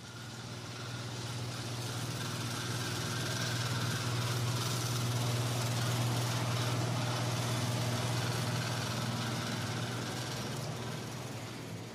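Resistance seam welding machine running as its copper wheel electrode rolls along the seam of a stainless steel drum sheet, welding it progressively. A steady low hum with an even hiss over it, fading in over the first second or two.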